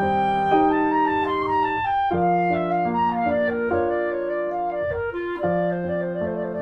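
Instrumental background music: a melody of held woodwind notes over piano.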